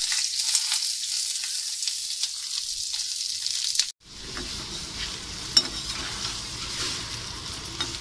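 Cut Indian gooseberry (amla) pieces sizzling in hot oil in a kadai, stirred with a perforated steel spoon that clicks and scrapes against the pan. The sizzle breaks off abruptly about halfway and resumes softer.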